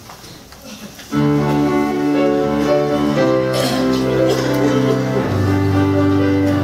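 Instrumental introduction to a hymn, starting about a second in: a keyboard plays held chords that change twice, leading into the choir's entry.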